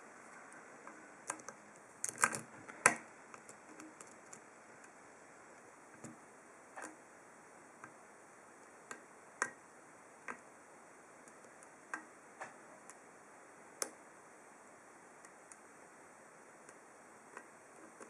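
Faint, scattered metallic clicks and ticks of a lock pick working the pins inside an ASSA Ruko 2 padlock's snowman core, with a quick cluster of clicks about two seconds in and single ticks every second or so after.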